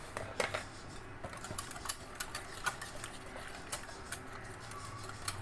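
Wire whisk clicking and scraping against a glass bowl as a thick yogurt-and-spice paste is beaten, with sharp irregular taps several times a second.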